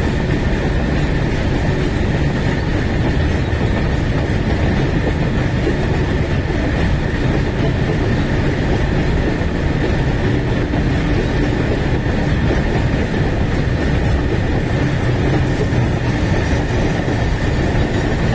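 Freight train of new BOXNHL open-top wagons rolling past, its wheels giving a steady rumble on the rails. A faint steady high tone runs above the rumble.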